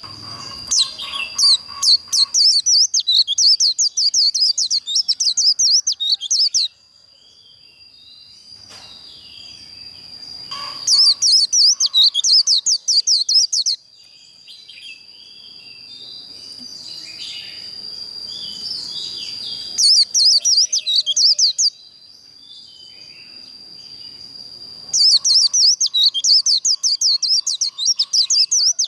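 White-eye (vành khuyên) singing its rapid, high, twittering 'líu' song in four bursts of a few seconds each, with softer chirps between. A steady thin high tone runs underneath.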